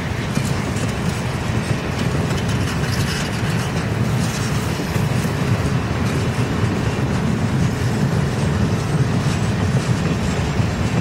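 Railroad cars rolling past on the rails: a steady, loud rumble of wheels on track, with faint high wheel noise about four seconds in.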